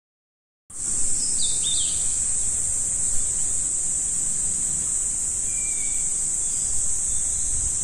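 A steady, high-pitched insect buzz from the trees, starting suddenly just under a second in, with a few short bird chirps over it.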